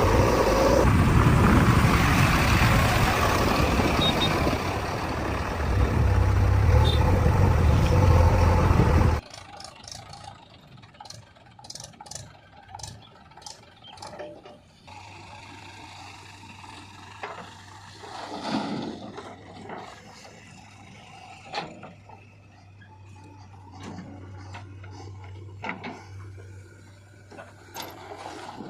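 A heavy diesel engine running loudly and steadily that cuts off abruptly about nine seconds in. After that there are only scattered light clicks and knocks over a faint low hum.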